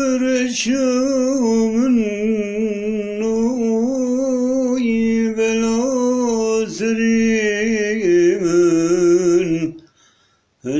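A man singing a slow, heavily ornamented melody, holding long notes with quick wavering turns of pitch. It breaks off for a moment near the end, then starts again.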